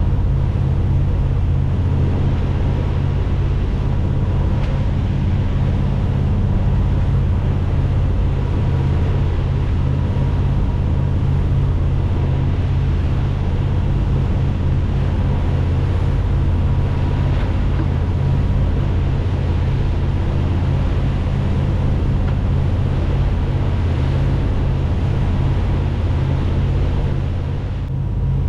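Luhrs 290 sportfishing boat's inboard engine running steadily under way, a deep even drone with wind and water hiss over it.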